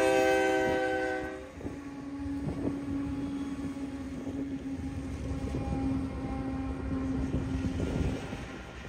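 Diesel freight locomotive's multi-chime horn sounding a chord, cut off about a second and a half in. After it, the train rolls past with a low rumble, a steady hum and scattered wheel clicks on the rails.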